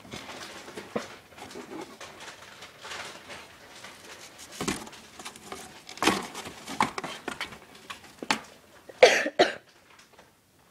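Cats scrabbling at and inside a cardboard box: cardboard rustling and scratching broken by several sharp knocks as they bat and jump against it, with a louder, rough burst of two or three parts about nine seconds in.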